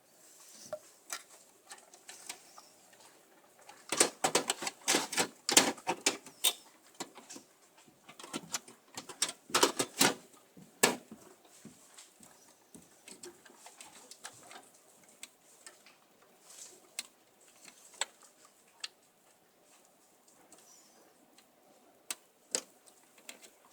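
Clicks and clatter of plastic and metal parts being handled during a hard drive swap in a desktop PC. A dense run of rapid clicks comes about four seconds in and another around nine to eleven seconds, then scattered single clicks.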